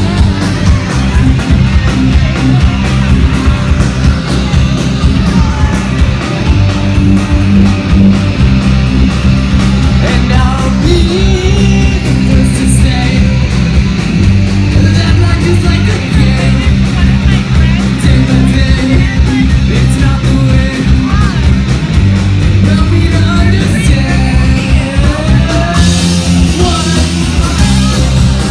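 Live rock band playing loud: electric guitar, bass guitar and drum kit, with a lead vocal sung over them.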